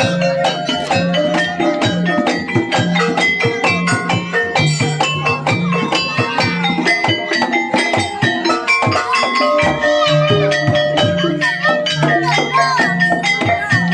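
Javanese gamelan music accompanying a kuda kepang dance: struck metallophones ringing out notes over drums and percussion in a dense, steady rhythm, with a bending melodic line entering in the second half.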